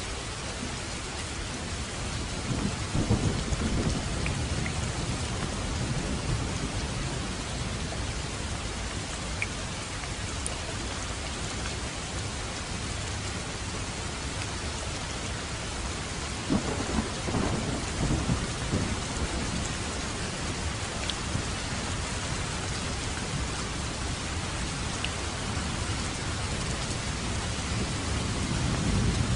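Steady rain falling, with low rolls of thunder swelling about three seconds in, again a little past halfway, and once more near the end.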